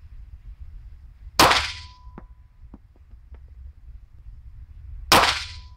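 Two semi-automatic pistol shots, about four seconds apart, each cracking sharply and echoing briefly off the range's concrete walls. After each shot a thin ringing tone hangs on for a moment, and a few faint clicks follow the first shot.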